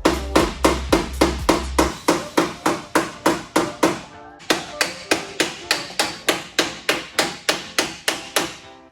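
Hammer and dolly knocking a creased dent out of a VS Commodore's steel body panel: rapid, even metallic strikes about three or four a second, with a short pause about four seconds in.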